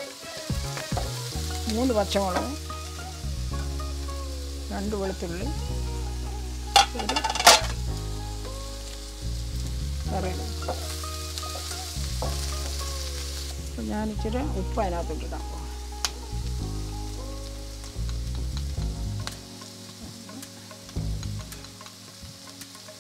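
Sliced onions, green chilies and ginger sizzling in oil in a nonstick wok while a wooden spatula stirs and scrapes them, with two sharp knocks about a third of the way in. Background music plays underneath.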